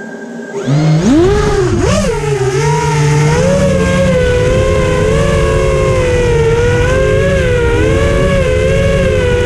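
Quadcopter's T-Motor F40 Pro II brushless motors spinning 6-inch three-blade props: idling, then about half a second in spooling up with a rising whine as it takes off, then a steady whine that wavers up and down with the throttle in flight. Heard from a camera on the craft, with a rough low rushing noise underneath.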